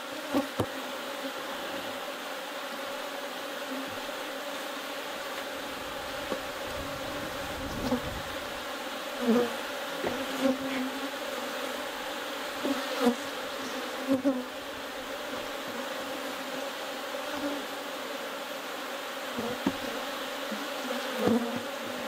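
Honeybees buzzing around open hives, a steady hum with a few brief louder buzzes now and then.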